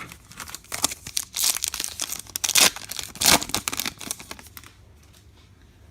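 Foil trading-card pack wrapper of a Topps Chrome Star Wars pack crinkling and tearing open, a dense run of crackles lasting about four seconds that then stops.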